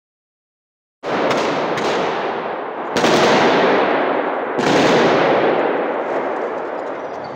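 Automatic gunfire echoing through a large hall, starting suddenly about a second in, with fresh loud bursts at about three and four and a half seconds, each trailing off in a long reverberation.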